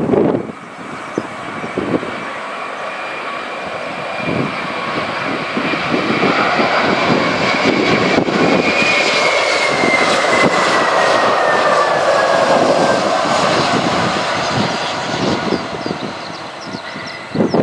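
Airbus A320-211 jet airliner passing by, its CFM56 engines rising to a loud rush with a fan whine that falls in pitch as it goes past, then fading. Gusty wind buffets the microphone throughout.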